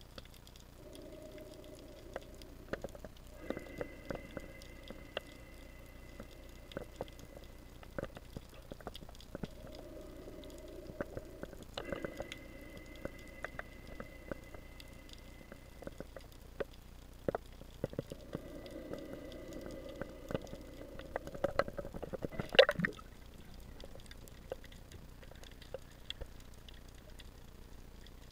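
Underwater sound heard through a diving camera's housing: scattered sharp clicks and crackles, and a faint high whine with a lower hum that comes and goes three times. A louder knock comes about 22 seconds in.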